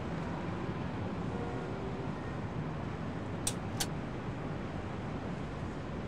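Steady low rumble and hiss of a breeze blowing in through an open window, with two sharp clicks about a third of a second apart a little past the middle.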